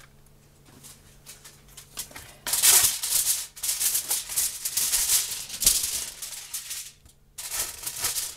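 Aluminium foil crinkling as a sheet is pulled from the roll and spread out flat, starting about two and a half seconds in, with a brief pause near the end before more crinkling.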